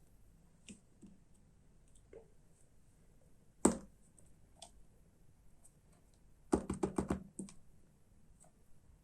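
Sharp clicks and clacks of hard plastic toy parts being handled: one loud click, then a quick run of about half a dozen clicks a few seconds later, with faint ticks in between.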